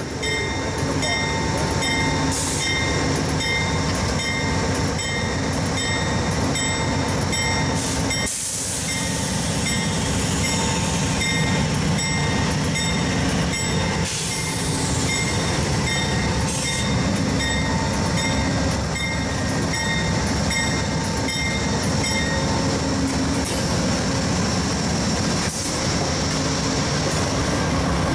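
Amtrak passenger train led by a GE P42 diesel locomotive rolling slowly past, its diesel engine running with a low rumble. Steady high ringing tones pulse on and off throughout.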